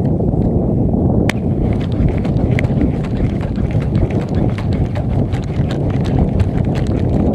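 Steady low rumble of wind buffeting the microphone on open water. About a second in there is a sharp click, followed by a run of light ticks as the Kastking Crixus Armor X baitcasting reel is handled.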